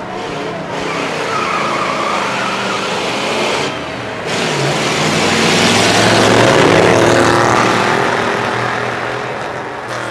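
Two pre-1960s cars drive past side by side in an eighth-mile drag race. Their engines grow louder to a peak about six and a half seconds in, then fade as the cars draw away.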